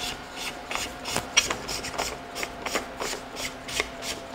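Knurled threaded ring on a Zhiyun Crane gimbal's handle being twisted by hand, making a quick run of short rasping scrapes, about three a second, as the threads turn.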